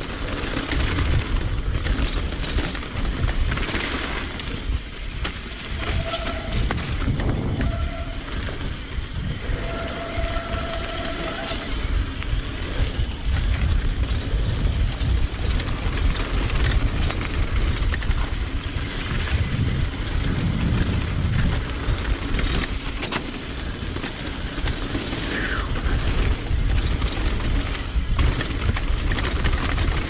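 Mountain bike descending a trail, heard from a camera on the rider: wind buffeting the microphone over the rumble and rattle of tyres and frame on dirt. The brakes give short squeals about six seconds in, again at seven and a half, and a longer one around ten seconds.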